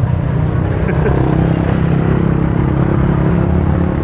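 Motor vehicle engine running close by, a loud, low steady drone with a slight shift in pitch about a second in.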